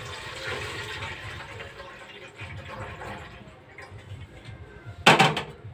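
Water poured from a round aluminium pot into a larger aluminium pot, splashing steadily for a few seconds. Near the end comes a loud metallic clank.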